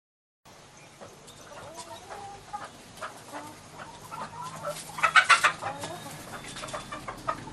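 A flock of chickens clucking and calling, starting after half a second of silence, with a loud cluster of calls about five seconds in.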